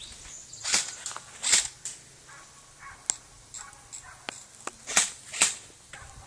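Airsoft guns firing single shots, about seven sharp cracks spaced irregularly, some louder and some fainter.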